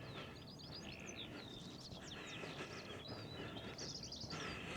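Birdsong: small birds chirping and twittering, with a quick high trill near the end.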